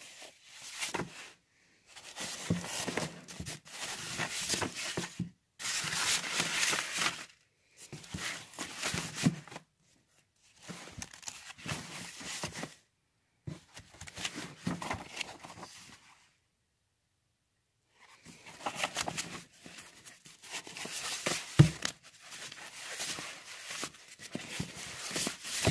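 Plastic comic-book bags crinkling and rustling as a stack of bagged comics is flipped through by hand, in repeated bursts with short pauses. A sharp knock about 21 seconds in.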